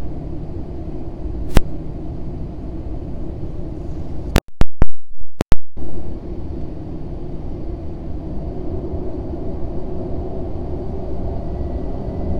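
Airbus A320 jet engines running, heard from inside the cabin as a steady low rumble that swells slightly near the end. Loud pops and a brief cut-out of the sound come from a dying microphone, once about a second and a half in and again around four to six seconds in.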